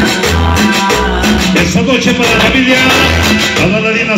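Loud Latin dance music played over a sonidero's sound system, with a steady bass beat and a sung melody.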